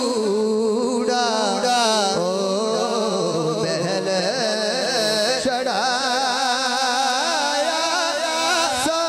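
A man singing Punjabi devotional verse into a microphone. He holds one long, ornamented line whose pitch bends and wavers continuously, with no pause for breath.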